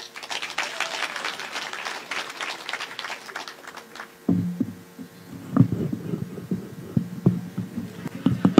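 Audience clapping for about four seconds. Then a stand microphone is handled and adjusted: irregular knocks and thumps come through the PA over a steady hum that starts suddenly.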